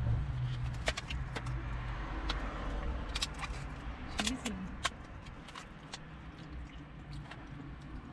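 Clear plastic clamshell pastry container crackling and clicking as it is handled and a cheese bite is taken out, with chewing. A low hum under it fades after about two seconds.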